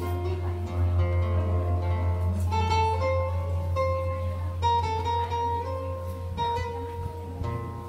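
Acoustic guitar played fingerstyle: a slow melody of plucked single notes and chords that ring on, over a steady low hum.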